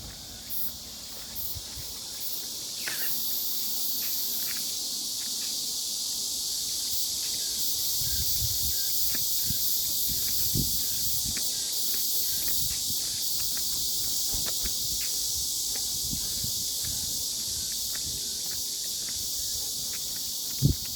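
Steady, dense high-pitched insect chorus in summer woodland, with scattered soft footsteps underneath.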